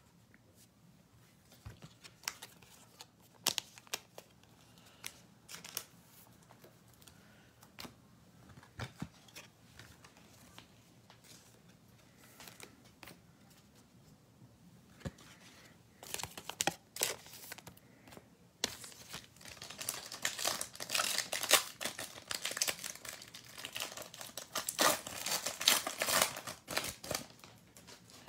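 Trading cards being handled with scattered light clicks and flicks, then a card pack's wrapper crinkling and tearing open, densest and loudest over the last ten seconds or so.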